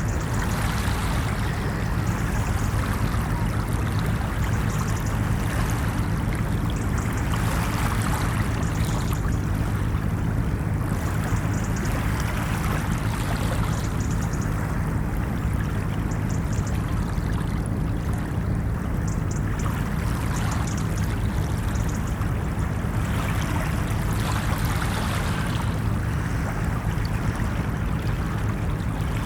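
Ocean waves washing onto a beach: a continuous rushing wash over a low rumble, swelling now and then as waves break and run up.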